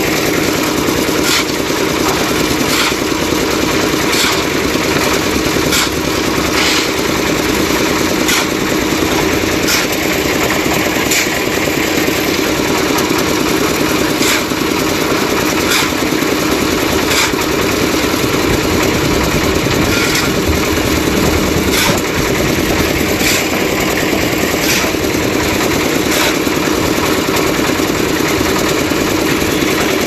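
Concrete mixer running steadily, its engine and turning drum making a continuous mechanical drone, with a regular clank about every second and a half.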